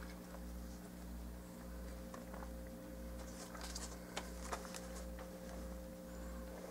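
Quiet room tone: a steady electrical hum under a low throb that pulses about twice a second, with a few faint clicks around four seconds in.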